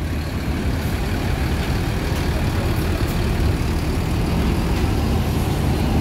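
Mercedes-Benz coach's diesel engine running steadily at low revs as the bus creeps up a ferry's loading ramp.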